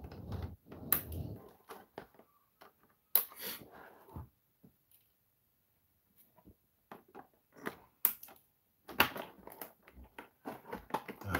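Clear plastic bags around a boxed toy robot figure crinkling as it is handled, with several sharp clicks.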